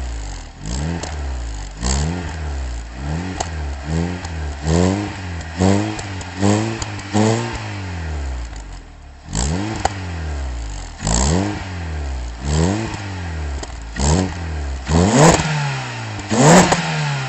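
Peugeot 206 CC's 1.6 16-valve four-cylinder petrol engine free-revving through a Supersprint sport exhaust, heard at the tailpipe: a string of quick throttle blips, each rising and falling in pitch, about one a second, with one longer rev partway through and sharper, higher revs near the end.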